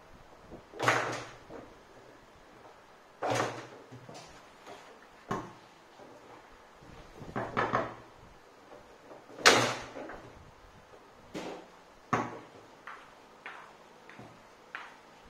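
Foosball being played: sharp, irregular knocks and clacks as the ball is struck by the plastic figures and bangs against the table walls. The loudest knocks come about a second in, about three seconds in and around nine and a half seconds, with quieter taps between.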